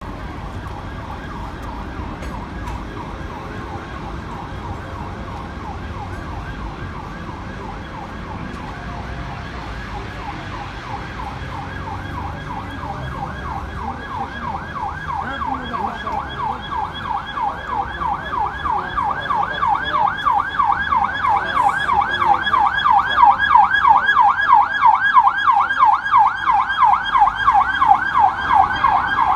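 British police car siren in a fast yelp, a rapid rising-and-falling wail at about four cycles a second. It is faint at first and grows much louder over the second half as the car approaches, over a steady rumble of street traffic.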